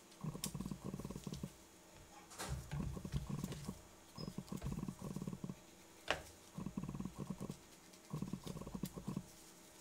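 A kitchen knife cutting lengthwise through raw zucchini: bursts of crisp, rapid crackling about a second long, one per cut, repeated about six times, with a few sharp snaps among them.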